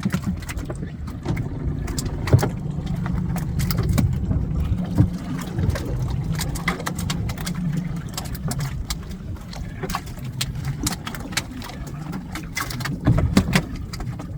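Many sharp knocks, clicks and rattles over a steady low rumble as a wire fish pot is handled and emptied of its catch, with a louder cluster of knocks near the end.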